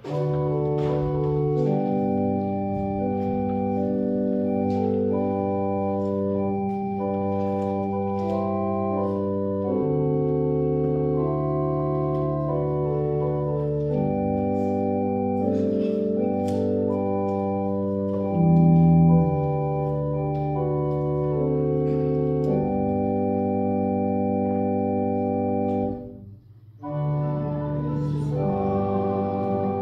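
Church organ playing a hymn introduction in slow, held chords, with a short break near the end before the playing starts again.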